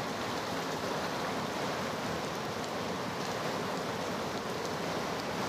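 The Ganga river in flood, its fast, turbulent water rushing steadily.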